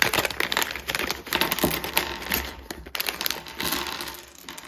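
Crinkly packaging being crumpled and rustled, a dense run of crackles that fades out near the end.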